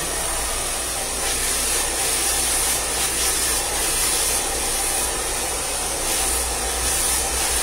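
Hand-held hair dryer running steadily, blowing onto short hair.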